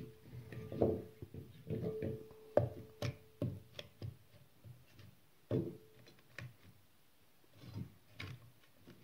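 Potato and vegetable chunks being placed into a cast iron pot, making irregular knocks and thuds against the pot and the food, some leaving a brief ringing note.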